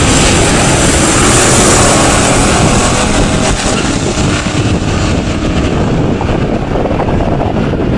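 Two V8 muscle cars, a 1967 Pontiac GTO with the 400 HO engine and an early-1960s Pontiac, launching and running at full throttle down a drag strip. Their engine and exhaust noise is loud and steady, easing slightly in the second half as the cars pull away.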